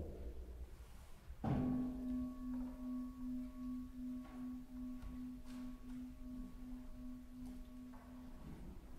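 Pipe organ sounding a single sustained note near middle C. It starts with a short click about a second and a half in, holds steady with a slight regular pulsing for about seven seconds, then is released.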